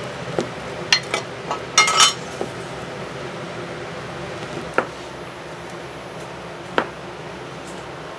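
Kitchen utensils clinking and knocking against dishes and pans during cooking, with a quick run of sharp, ringing clinks about two seconds in and single knocks later. A steady low hum runs underneath.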